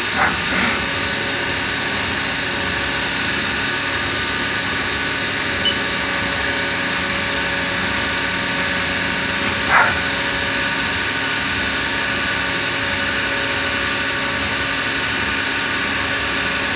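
2005 Haas Mini Mill CNC vertical mill running a drilling cycle, its spindle and drives giving a steady high whine over a hiss, with coolant spraying onto the part. Short louder noises come just after the start and again about ten seconds in.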